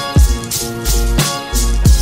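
Background music with a steady beat: deep bass drum hits that drop in pitch, under held chords.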